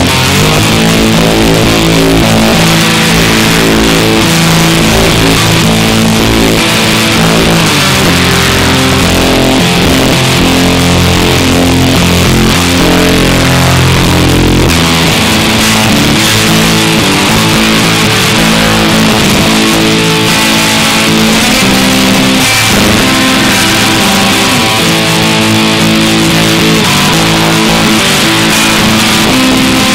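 Electric guitar played through a Line 6 Spider IV 15 amplifier and recorded raw, held notes and chords ringing at a loud, even level. About halfway through, the lowest bass notes drop out.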